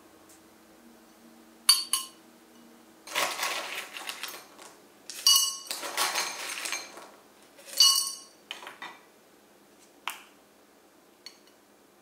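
Rock sugar chunks spooned with a wooden spoon from a ceramic bowl and dropped into glass jars of lemon slices: sharp clinks with a brief glassy ring, and several rattling, clattering stretches as the crystals tumble against the glass.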